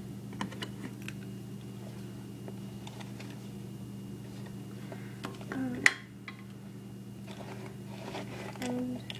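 Scattered light clicks and taps of small objects being handled close to the microphone, with one sharp click about six seconds in, over a steady low hum.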